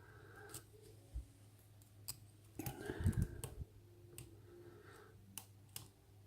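Faint clicks and light scraping of a lock pick and tension wrench working the pins inside a pin-tumbler lock, with a brief louder rustle and knock about two and a half seconds in.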